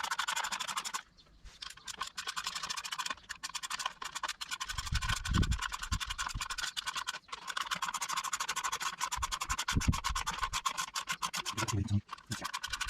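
Socket ratchet clicking rapidly in runs as it turns out the 7mm bolts of a motorbike's front sprocket cover, with short pauses and a few dull knocks of metal being handled.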